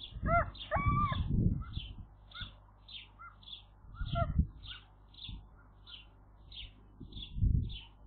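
Outdoor bird sounds: a small bird repeats a short high note about twice a second throughout, and a gull gives a few arching calls in the first second and a half. Low bumps and rustles come and go, loudest near the start and about seven and a half seconds in.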